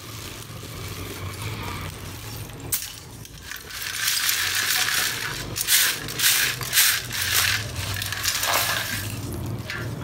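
Pieces of roasted multani mitti (fuller's earth clay) clattering and sliding as they are tipped out of a round steel mesh sieve onto a heap, from about four seconds in until near the end. A steady low hum runs underneath.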